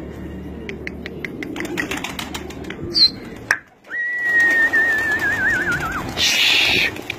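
A flock of domestic pigeons cooing, with many short clicks and wing flutters. About four seconds in a long steady whistle sounds, falling slightly and ending in a warble, and just before the end comes a brief loud rush of wing flapping.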